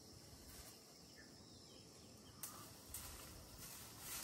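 Near silence: faint outdoor ambience, with a few faint short clicks in the second half.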